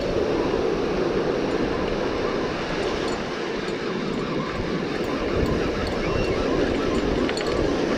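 Steady rush of wind and surf, with wind buffeting the microphone as an uneven low rumble.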